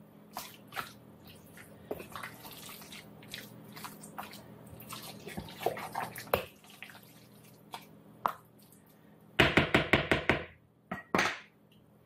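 A spoon stirring thick, mayonnaise-dressed potato salad in a large bowl: scattered wet squishing and light clicks of the spoon against the bowl. About nine seconds in there is a quick run of louder clattering knocks, then one more short clatter about a second later.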